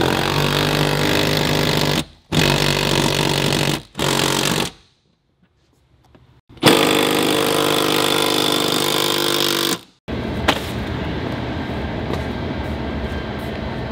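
A power tool running in several bursts of one to three seconds, each stopping abruptly, with a silence of nearly two seconds in the middle. The last few seconds are quieter steady shop noise with a single sharp click.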